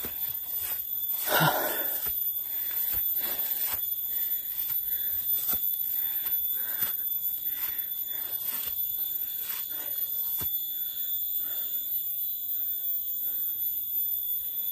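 Footsteps and brushing through undergrowth while walking down a steep forest path, with heavy breathing, over a steady high-pitched whine. Near the end a short call repeats about four times.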